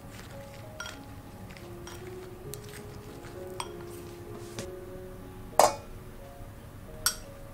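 Wooden chopsticks clicking lightly against a glass bowl while tossing shredded cabbage and carrot, over soft background music. A louder knock comes about five and a half seconds in, and a sharp clink near the end.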